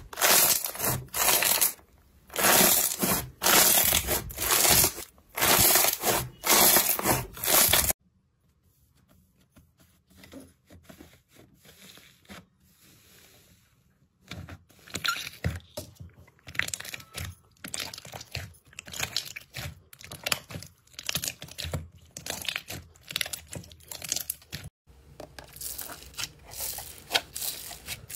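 Foam-bead slime crunching loudly as hands press and squeeze it, in bursts about once a second. After a cut it turns quiet, then comes a run of small sticky clicks and pops as slime is squeezed, with crunching again near the end.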